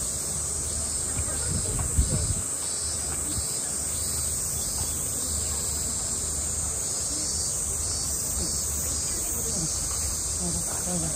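A chorus of cicadas drones in a steady high-pitched hiss, with a faint repeating pulse beneath it. A brief low thump comes about two seconds in.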